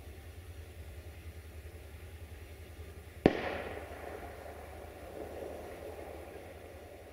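A single loud firecracker bang about three seconds in, echoing away over the next few seconds. Under it runs a low, steady, pulsing engine rumble.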